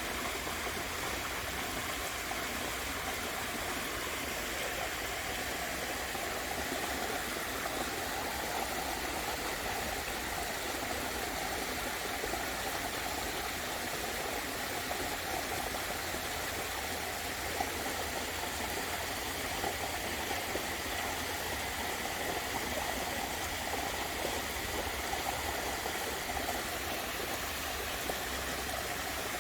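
Water of a garden waterfall and stream, splashing and rushing steadily.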